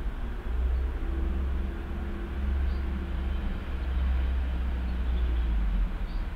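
Low rumble of a vehicle going past, with a faint engine hum that builds up and fades away over about five seconds.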